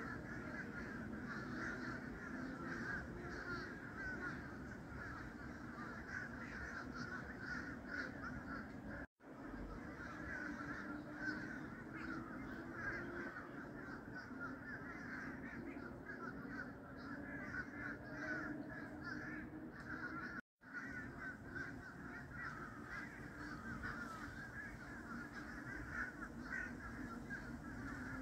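A large flock of birds, likely crows, calling and chattering without pause. The sound cuts out completely for a moment twice.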